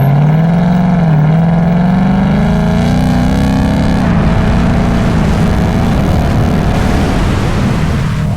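Ford Mustang GT's V8 engine coming on throttle suddenly, its note climbing over the first few seconds and then holding fairly steady.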